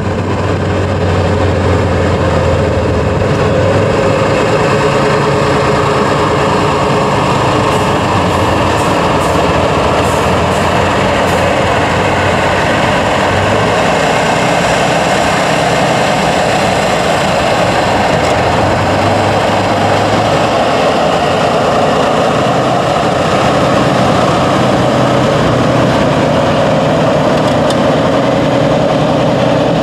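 Diesel engine of a Tatra 813 8x8 trial truck running under load as it crawls over steep sand, its note shifting up and down with the throttle.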